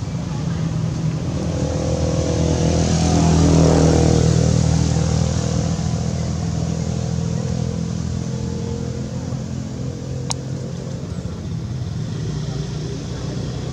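Motor vehicle engine running, swelling as it passes about three to four seconds in and then fading back to a steady hum. A single sharp click sounds near the end.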